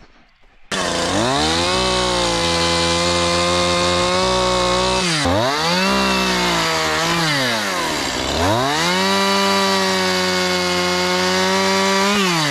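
Two-stroke chainsaw running at high revs, starting suddenly under a second in. Its pitch drops away and climbs back up twice as the throttle is eased off and opened again.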